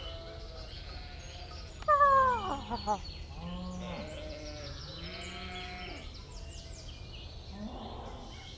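Cartoon sound effects: a loud call falling in pitch about two seconds in, followed by a series of shorter bleat-like animal calls and a few high chirps.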